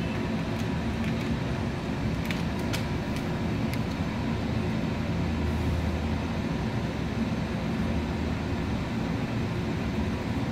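Steady low mechanical hum throughout, with a few faint clicks in the first few seconds from a spoon stirring in a steel bowl.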